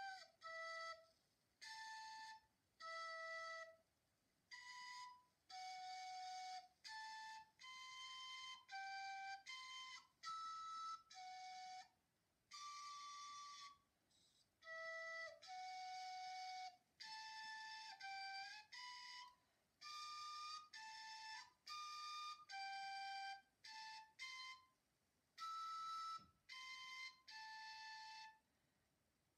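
Quiet outro music: a slow solo melody of single flute-like notes, each held about half a second to a second with short silent gaps between them.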